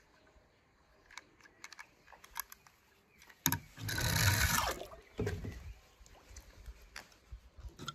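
A small die-cast toy truck handled and pushed over a glitter-paper surface: scattered light clicks and taps, with about a second of gritty rolling and scraping noise midway as the loudest sound.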